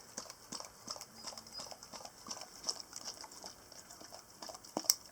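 A dog licking and lapping soft food from a small bowl: quick, irregular wet clicks and tongue smacks, several a second, with a sharper knock against the bowl near the end.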